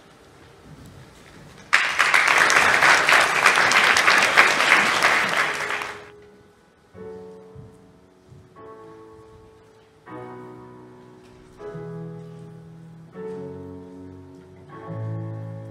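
Audience applauding for about four seconds, then a keyboard begins playing slow chords, a new chord about every second and a half, with lower notes joining in about ten seconds in.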